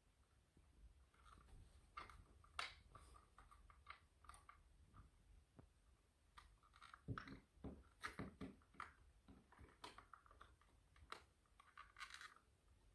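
Faint plastic clicks and rustling as a wiring-harness connector is worked onto the three prongs of a hardwired smoke detector, the clicks coming thicker in the second half.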